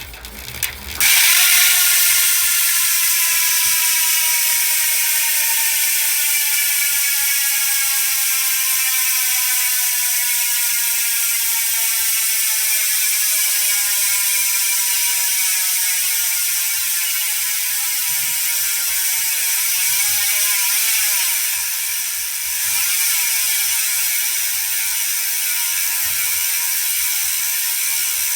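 Profile Elite single-speed rear hub freewheeling as the wheel spins: its pawls make a loud, fast ratcheting buzz. The buzz starts suddenly about a second in and slowly drops in pitch as the wheel loses speed, with a brief wobble and dip about two-thirds of the way through.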